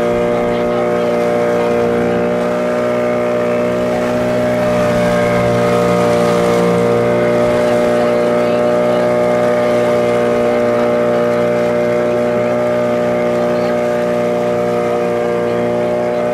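A motorboat's engine running steadily at cruising speed, with the hiss of water rushing past the hull.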